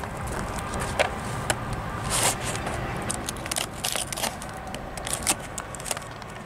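Crinkling and crackling of a clear plastic sandwich container as it is handled and opened, an irregular scatter of sharp crackles.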